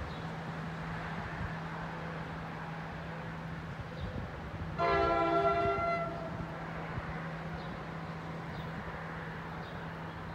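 Train air horn sounding one blast of about a second, a chord of several notes, from a train approaching the station.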